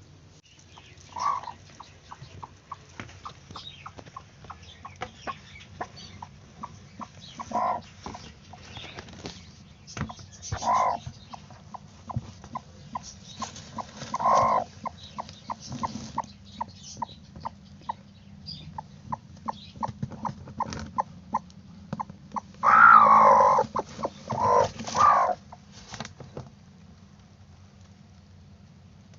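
Broody hen sitting on eggs, giving a few low single clucks a few seconds apart, then a louder run of calls about three-quarters of the way through. Many light ticks and taps run between the calls.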